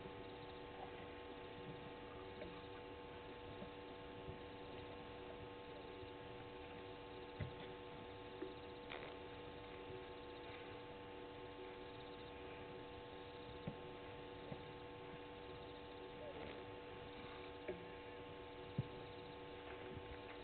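Faint, steady electrical hum made of several even tones, with a few scattered faint clicks.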